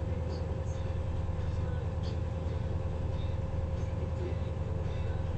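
River motor ship ST-308's diesel engine running steadily: a constant low drone with a steady humming tone above it.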